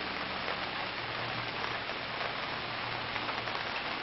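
Steady outdoor background hiss with faint scattered ticks and a faint low hum.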